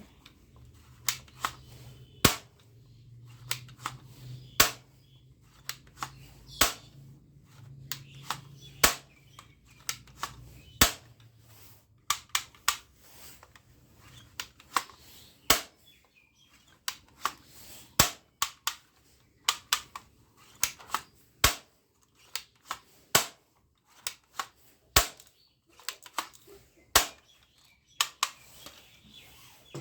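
Plastic toy guns being cocked and fired: a long, irregular series of sharp snaps and clicks, about one or two a second.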